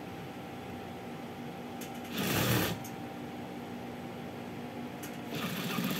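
Industrial sewing machine: its motor hums steadily, and the needle runs in two short bursts of stitching, about two seconds in and again near the end.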